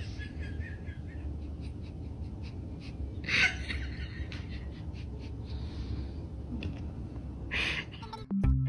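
Two short breathy puffs, about four seconds apart, over a low steady hum; music starts near the end.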